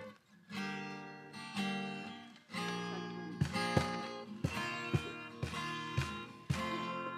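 Guitar music: chords strummed again and again, with sharper, quicker strokes from about halfway through.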